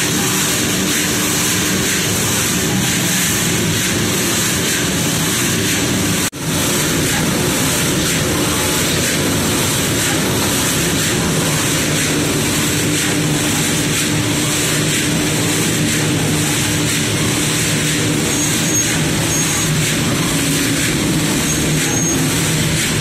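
Steady machine noise with a low hum from a motor-driven rotating drum chickpea roaster running with its burner lit, with one short drop about six seconds in.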